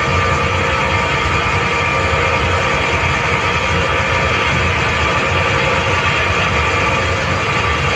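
Hitachi screw air compressor running steadily: a loud, even machine noise with a few steady whining tones through it.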